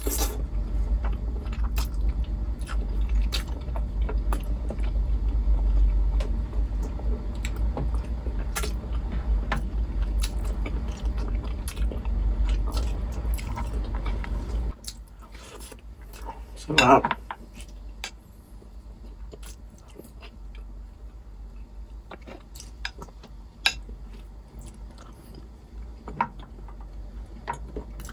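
Close-miked chewing and wet lip-smacking of a person eating saucy beef ribs by hand, with many small clicks; louder for about the first half, then quieter. About 17 seconds in, a short vocal sound from the eater stands out.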